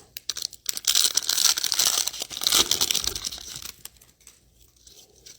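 Trading card pack wrapper crinkling and tearing as it is handled and ripped open, for about three seconds, then quiet handling.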